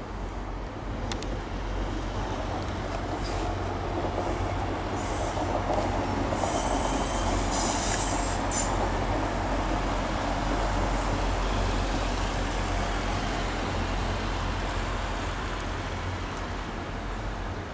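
Class 175 diesel multiple unit running through the station, its engine and wheel noise building and then easing off. A high wheel squeal sounds for a few seconds about a third of the way in.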